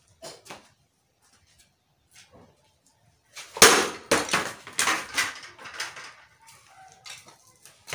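Index Titan 5 motorcycle helmet's thin plastic shell smashed hard against a solid surface: one loud crash about three and a half seconds in, then a quick run of further knocks and rattles that die away over the next two seconds as the shell breaks up.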